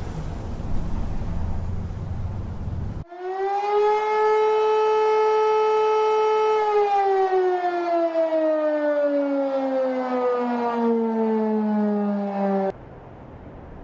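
A low rumble, then about three seconds in a loud siren-like wail starts: it rises briefly, holds one pitch, then slowly sinks lower before cutting off abruptly near the end.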